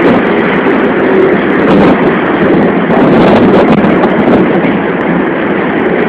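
Strong wind rushing over the phone's microphone, mixed with passing traffic on the bridge: a loud, steady roar with no breaks.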